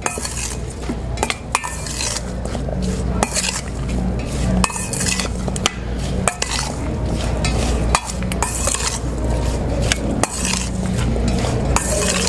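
Metal spoon stirring berries with sugar and orange juice in a stainless steel mixing bowl: irregular clinks and scrapes of the spoon against the bowl, over a steady low hum.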